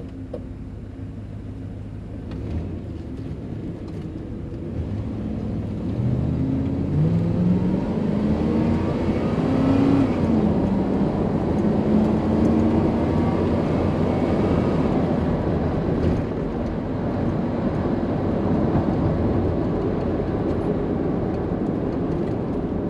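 1989 Chevrolet C2500 Scottsdale pickup pulling away: the engine note climbs in pitch from about five seconds in, falls back around ten seconds, then holds steady under a constant road hum as the truck cruises.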